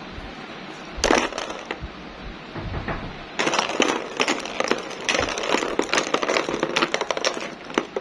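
Hollow plastic play balls clattering and knocking against each other and the plastic tub as they are moved about: a short burst of knocks about a second in, then dense, rapid rattling from about three and a half seconds on.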